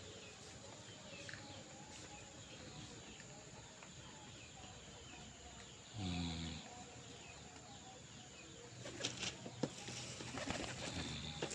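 A flock of domestic pigeons at a loft, faint and steady, with small chirps. From about nine seconds in there are several quick bursts of wing flapping.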